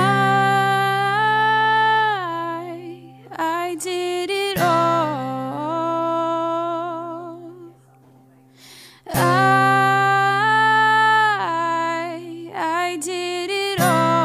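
Background pop song: long, wordless sung notes over a steady low note. The music drops almost to nothing about eight seconds in, then comes back.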